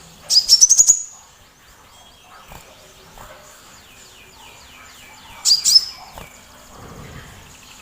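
Sunbird song: a quick burst of sharp, high chirps at the start, a run of fainter falling notes, then another loud burst of chirps about five and a half seconds in.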